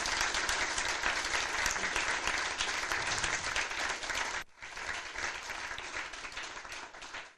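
Audience applauding in a room: dense clapping that drops off sharply about four and a half seconds in, picks up again more quietly and dies away near the end.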